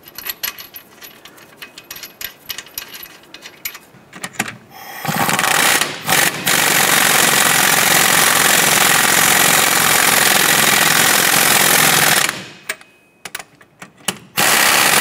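Light metallic clicks as a nut is threaded onto a strut-to-knuckle bolt, then an impact wrench hammers the nut down for about seven seconds with a short break near its start. It stops, a few clicks follow, and it starts again just before the end.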